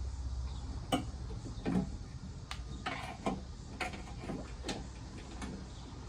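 Light, irregular clicks and taps, about nine in six seconds, of a small hand tool working at the plastic wiring connector of a Ram's factory backup camera to pry its pins loose. A low steady hum runs under them.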